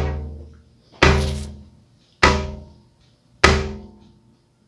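Deep drum hits at an even pace, about one every 1.2 seconds, each ringing out and fading before the next.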